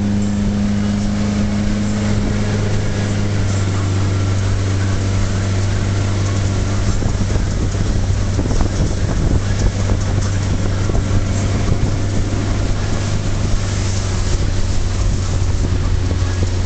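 Tow boat's engine running steadily at speed while pulling a wakeboarder, a low even hum, over rushing water and wind buffeting the microphone.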